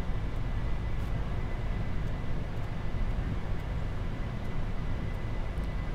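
Steady flight-deck noise of a Boeing 747-400 freighter climbing out: a low rumble of airflow and engines under an even hiss, with a faint steady high tone running through it.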